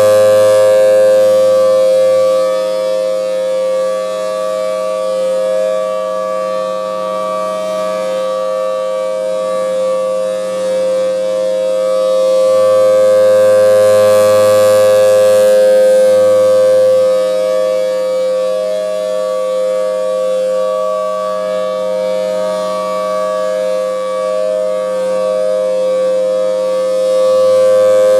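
Federal Signal Thunderbolt 1000T tornado siren sounding a steady tone at one pitch during a test. It swells loud and fades back at regular intervals of about fourteen seconds as the rotating horn sweeps past.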